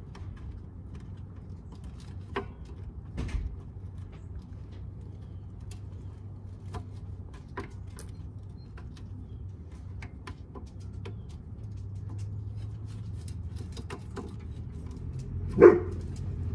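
Small scattered metallic clicks and taps as a brake line flare nut is worked by hand against a wheel cylinder, the fitting not catching its threads, over a steady low hum. A short, louder pitched sound comes near the end.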